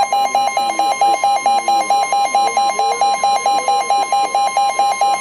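Weather radio receiver's alert alarm beeping rapidly and evenly, about five beeps a second, over a steady high tone. It signals that a new weather alert is coming in.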